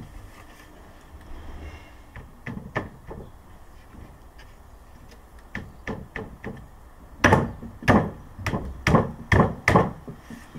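Knocks of hive panels being knocked into the slots of a flat-pack beehive: scattered light taps, then a quick run of about six louder knocks near the end.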